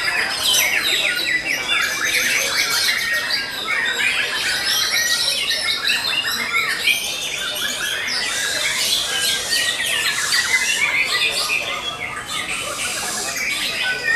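Several caged songbirds singing loudly at once: a dense, unbroken tangle of fast, varied chirps, trills and squawks.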